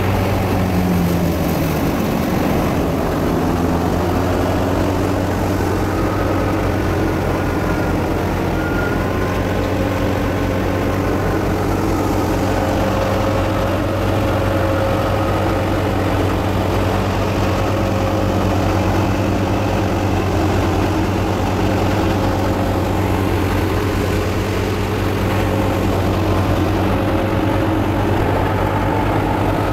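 Tractor-driven wheat thresher running steadily while threshing, its drum and fan turning with the tractor's engine driving it through the PTO shaft: one constant, loud mechanical drone with a low pulsing beat and faint steady whines above it.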